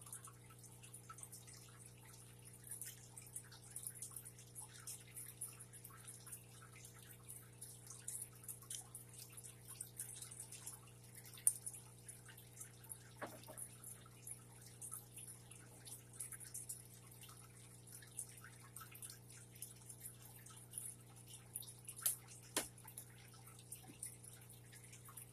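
Faint room tone: a steady low hum with light crackling ticks throughout, and two sharper clicks, one about halfway through and one near the end.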